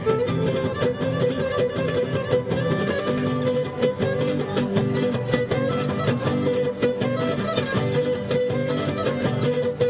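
Live Cretan folk dance music: a bowed Cretan lyra carrying the melody over plucked laouto accompaniment, playing steadily.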